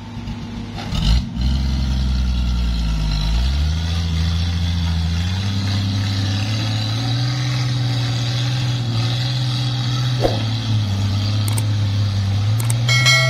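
Engines straining as an excavator's bucket shoves a Toyota Land Cruiser hardtop loaded with oil palm bunches through deep mud. The low engine drone climbs in pitch in two steps over the first few seconds, then holds steady at high revs, with a knock about a second in.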